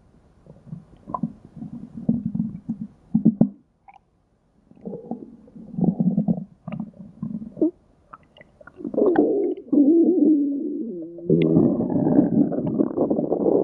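Cartoon sound effect of a stomach growling and gurgling in a string of irregular rumbles. It breaks off briefly about four seconds in, then swells into a longer, louder growl over the last few seconds.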